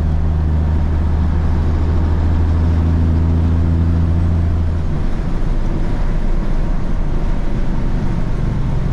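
Cab interior of a 1983 Kenworth K100 cabover semi truck on the move: the diesel engine runs with a steady low drone. About halfway through, the drone breaks up into a rougher, noisier rumble.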